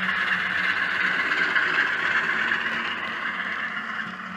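Model diesel locomotive's DCC sound decoder playing a diesel engine running sound through the model's small speaker, with some wheel noise on the track. The sound holds steady, then fades over the last second or so as the locomotive runs away.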